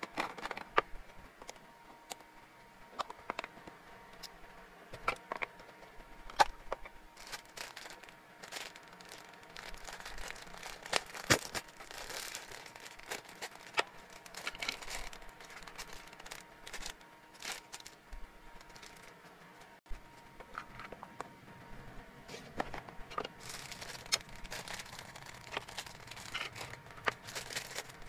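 Plastic treat packets crinkling and rustling as they are handled, with clicks of clear plastic storage boxes and lids and the clatter of small hard hamster treat drops poured into a box.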